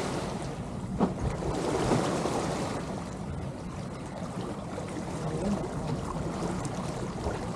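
Water washing along the hulls of a sailing catamaran under way in light wind, with wind rumbling on the microphone and a single sharp knock about a second in.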